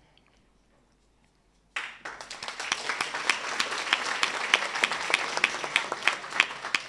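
Applause breaks out suddenly about two seconds in after a hush: many hands clapping together, with single sharp claps standing out, dying away at the very end.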